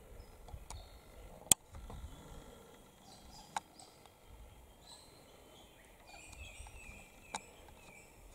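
Faint, short bird calls chirping in the background, with three sharp clicks, the loudest about one and a half seconds in and the others near the middle and the end.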